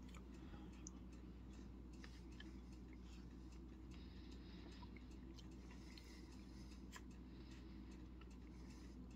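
Near silence: room tone with a steady low hum and a few faint, irregular clicks.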